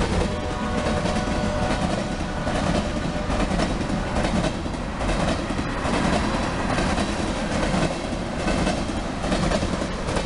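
HO scale model train running past close by, with a steady running noise and wheels clicking in a regular rhythm over the rail joints.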